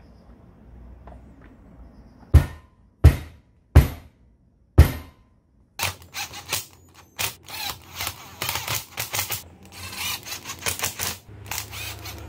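Four sharp knocks, then a cordless drill driver running in short stop-start bursts with rapid clicking as it drives long screws into an angle grinder's gear housing.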